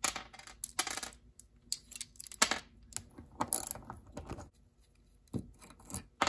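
Small metal parts of a Suntour Mighty Click rear derailleur clinking and rattling as they are handled, with a string of short, sharp metallic clicks and scrapes and a brief lull about five seconds in.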